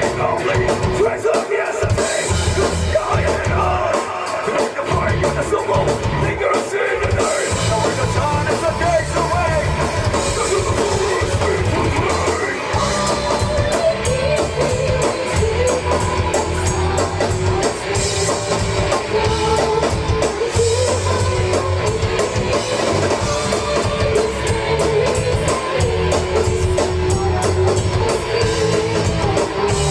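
A rock band playing live, with a drum kit, amplified instruments and singing.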